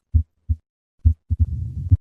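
Heart sounds of mitral stenosis: two beats of plain lub-dub, then about a second in a low-pitched rumbling diastolic murmur starts filling the gap between beats, ending in a sharp, loud beat.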